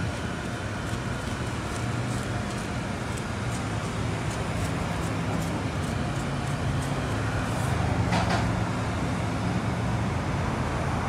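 Steady low mechanical hum, like a running engine, over an even background rumble, with a brief rasp about eight seconds in.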